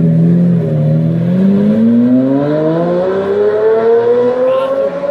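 Lamborghini Murciélago's V12 engine under hard acceleration. Its note dips a little in the first second, then climbs steadily in pitch for about four seconds in one long pull.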